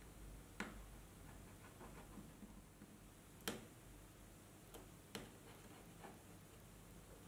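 Ballpoint pen tracing around a cardboard template on a sheet: very quiet, with about five sharp clicks, the loudest about three and a half seconds in.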